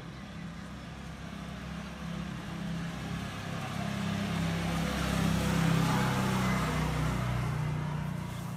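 A motor vehicle passing on the road, its engine hum and tyre noise growing louder to a peak about halfway through and then fading.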